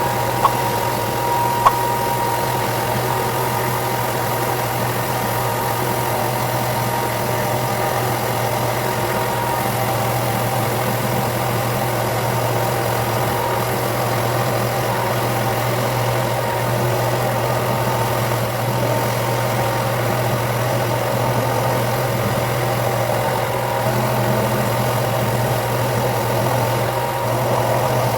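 Electric power sander running steadily, its motor humming under a constant gritty sanding hiss, with two sharp clicks in the first two seconds.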